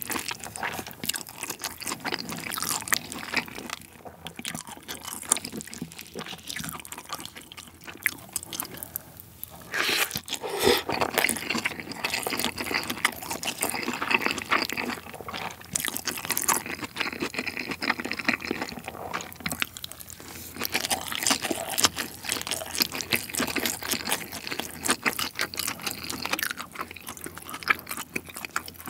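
Close-miked wet chewing and lip smacking of a person eating saucy Chinese-style bibimbap rice by the spoonful, as a run of small clicks and smacks with no words.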